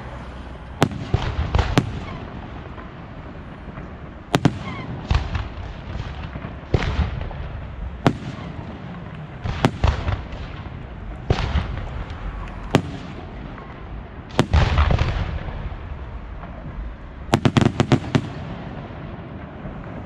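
Fireworks display, shells bursting with sharp bangs about one every second or so, some doubled and trailing off in crackle. A quick run of bangs comes near the end.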